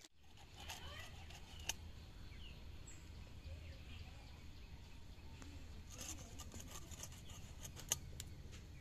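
Quiet rural background with birds chirping now and then over a low steady hum, and a few sharp clicks or taps, the loudest about two seconds in and near the end.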